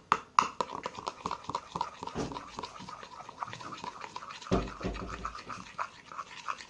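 Spoon stirring a thick sugar slime mixture in a small bowl: rapid, rhythmic scraping and clicking of the spoon against the bowl, with a couple of dull low bumps partway through.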